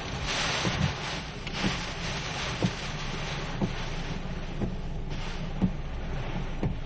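Heavy rain hissing steadily, with a short low knock about once a second.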